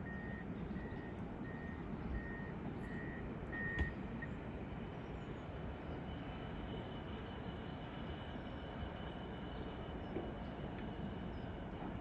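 Container wagons of a long intermodal freight train rolling past with a steady rumble. A string of short high beeps repeats about every half second for the first four seconds, with a sharp knock near the end of them. After that a steady high-pitched tone sounds over the rumble.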